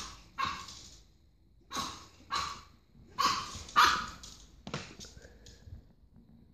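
Pug puppy barking: about seven short barks, mostly in quick pairs, dying away about five seconds in.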